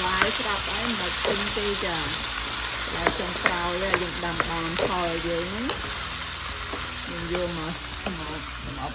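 Food stir-frying in hot oil in a pan: a steady sizzle with stirring, and a few sharp knocks of the stirring utensil against the pan about three to four seconds in. A voice is faintly audible underneath.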